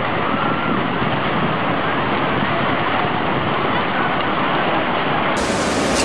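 Tsunami floodwater rushing through a town, a dense steady rush of water. About five seconds in, it cuts suddenly to a brighter, fuller rush of churning floodwater from another recording.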